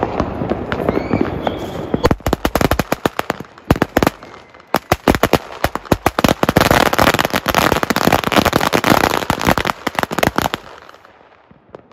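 A long string of firecrackers going off in rapid, overlapping bangs. It starts about two seconds in and dies away near the end.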